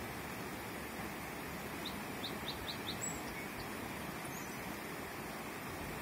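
River water running in a steady rush, with a songbird giving a quick run of about five short chirps about two seconds in, followed by a couple of higher single calls.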